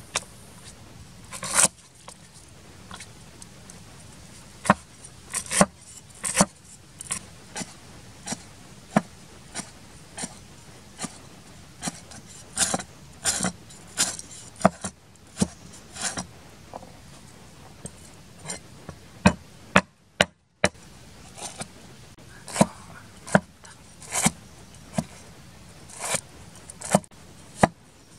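Cleaver chopping and slicing on a thick round wooden chopping board: irregular sharp knocks, one or two a second, with a brief dropout about twenty seconds in.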